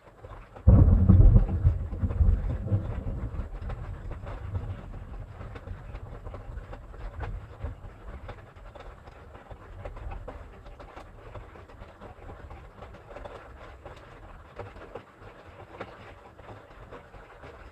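A thunderclap breaks suddenly about a second in and rolls into a deep rumble that slowly fades over several seconds, with fainter rumbles of thunder later on.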